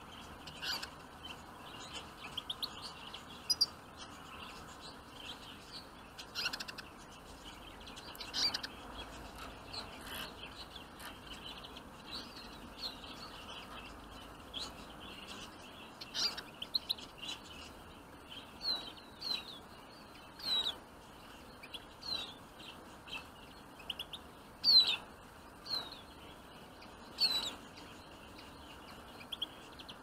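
Small wild finches, Eurasian siskins and goldfinches, giving short high chirping calls scattered throughout, many of them quick falling notes, over a faint steady hiss.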